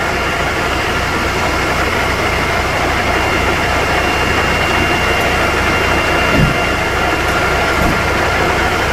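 Fire engine's pump engine running steadily under a constant rush of noise from the hose jets and the fire, with a faint steady high whine over a pulsing low rumble.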